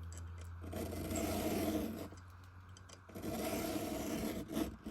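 A hand file scraping across a chainsaw ripping-chain cutter in two slow strokes of about a second and a half each. The strokes are cutting back an uneven corner of the cutter to match the others.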